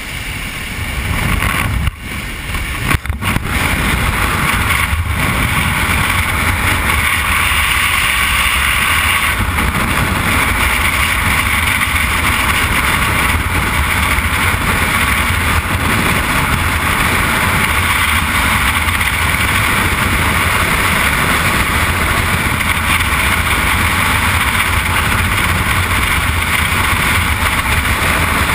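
Freefall wind rushing over a skydiver's helmet-camera microphone, a steady loud roar. It is preceded by the open door of the jump plane, with a few knocks at the exit about two to three seconds in.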